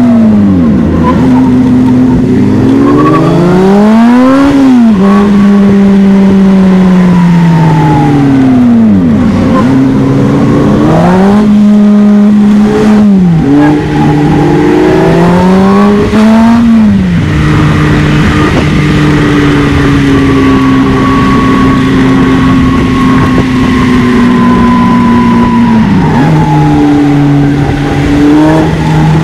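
Polaris Slingshot engine under hard driving, its pitch climbing under acceleration and dropping off again several times, then holding a long, slowly falling note before picking up again near the end.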